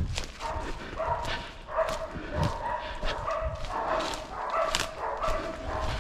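Hunting hounds barking and baying over and over, call after call with hardly a break, mixed with footsteps crunching and brushing through dry leaf litter.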